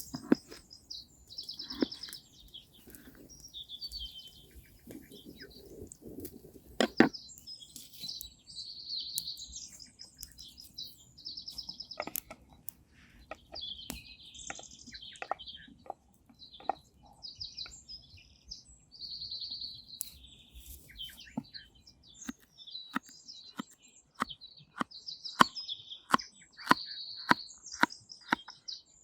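A songbird singing short, high, repeated trilled phrases again and again, over a scatter of sharp clicks and taps that come more often in the last few seconds.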